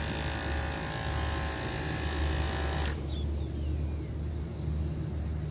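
Small 12-volt portable air compressor running with a steady buzzing hum, pushing air through a smoke jug into the engine for a vacuum-leak smoke test. A brighter buzz rides over the hum for about the first three seconds and stops with a click.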